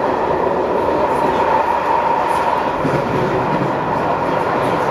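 Passenger train running steadily, heard from inside the carriage: an even noise of wheels on rail and the moving car.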